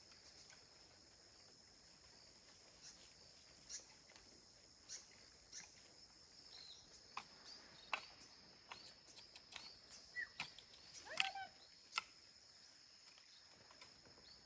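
Steady high-pitched drone of insects such as crickets, with scattered sharp taps and knocks. A few short bird-like chirps come about ten to eleven seconds in.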